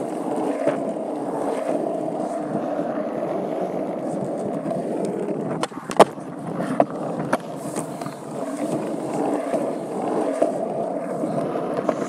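Skateboard wheels rolling over rough asphalt: a steady rumble, broken by a few sharp clacks around the middle, the loudest about six seconds in.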